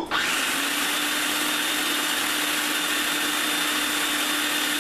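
Food processor running steadily, chopping a wet basil and garlic paste; its motor starts at the opening and settles into a steady hum about half a second in.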